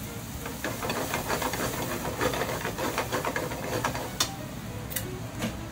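Cream bubbling and crackling in a hot frying pan with bacon and mushrooms, with a dense crackle for the first few seconds. Wooden chopsticks stir it, and there is a sharp click about four seconds in.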